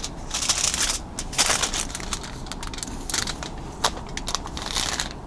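Crumpled aluminum foil crinkling and rustling as it is handled, with a marker and ruler worked across it; a couple of sharp ticks stand out, one at about a second and a half and one near four seconds.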